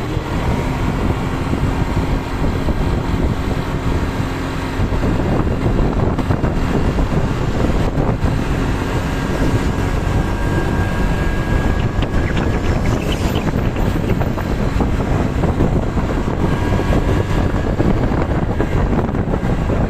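Loud, steady rumble of road vehicles with wind buffeting the microphone; no horn melody stands out.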